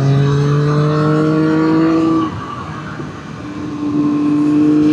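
Triumph Street Triple 765 RS's inline three-cylinder engine pulling under acceleration, rising in pitch for about two seconds. The revs then drop and the sound dips, as at an upshift, before it pulls again at a steady pitch.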